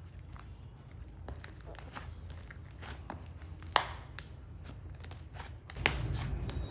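Hands squishing and poking slime, with small sticky crackles and pops, and a sharper pop about four seconds in and again near six seconds.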